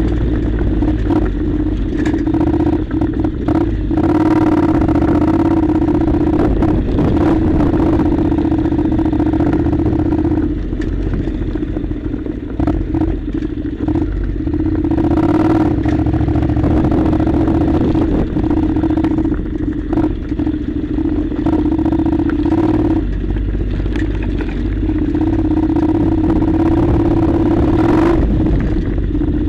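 Honda NC700's parallel-twin engine running steadily as the motorcycle rides a rough gravel track, with occasional knocks and rattles from the bumps.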